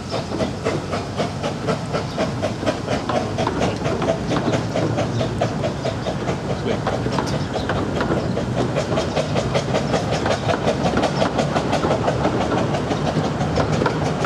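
Coaches of a 15-inch gauge steam train rolling past, their wheels clicking in a quick, steady rhythm over the rail joints over a continuous rumble.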